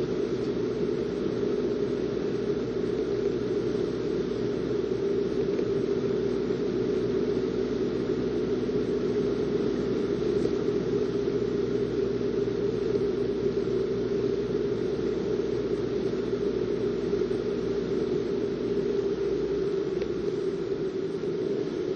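A car driving at a steady pace: even engine and road noise that does not change.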